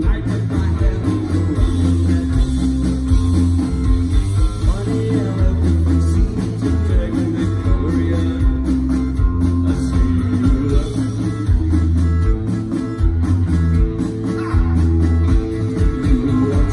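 Live punk rock band playing loud through a PA: distorted electric guitars, bass and a driving drum beat, with a male singer's vocals over them.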